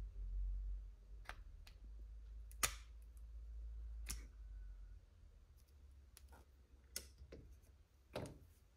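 A handful of sharp clicks and taps from the Insta360 Flow gimbal's magnetic phone clamp being fitted and handled, over faint handling rumble. Near the end the gimbal and clamp are set down on a table with a last knock.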